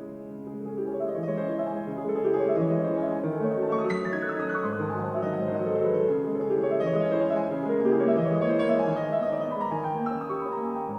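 Piano music played back through Yamaha NS-1000MM speakers, with sustained overlapping notes and a brighter struck chord about four seconds in.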